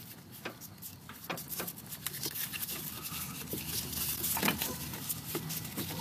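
Scattered small clicks and taps of hand work on the plastic coolant connector, hoses and wiring under the truck, over a faint steady low hum.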